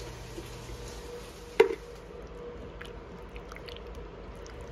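Thick crushed tomatoes squishing out of a can into a slow-cooker crock of beans, then a wooden spoon stirring the wet mixture with faint squelches and ticks. One sharp knock comes about one and a half seconds in.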